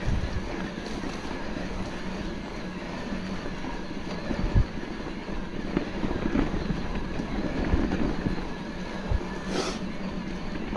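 Mountain bike being ridden along a trail: steady tyre noise and wind, with a few knocks from bumps, the sharpest one near the end.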